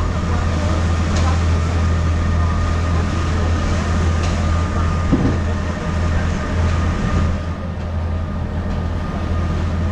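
Tour boat's engine running with a steady low drone, with a brief louder sound about five seconds in.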